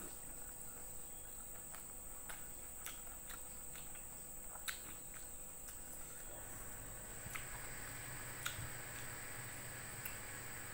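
A person chewing food close to the microphone: faint chewing with scattered wet mouth clicks and smacks, over a steady high-pitched whine.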